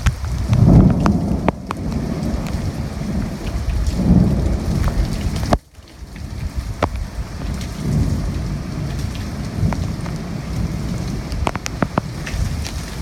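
Heavy thunderstorm rain falling steadily, with low rumbles of thunder swelling and fading several times and sharp ticks of drops striking close by. The sound cuts out abruptly for a moment about halfway through.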